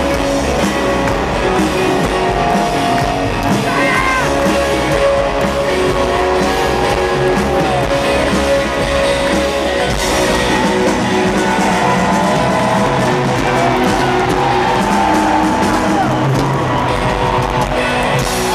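Live rock band playing electric guitars and drums, with some singing, heard from the audience in a stadium.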